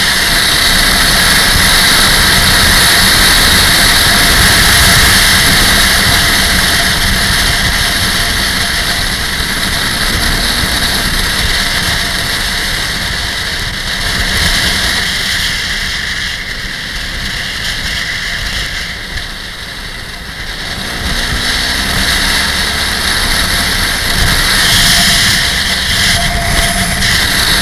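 Motorcycle riding on a winding mountain road, its engine noise mixed with loud, steady wind rush on the microphone. The noise eases for a few seconds past the middle, then builds again.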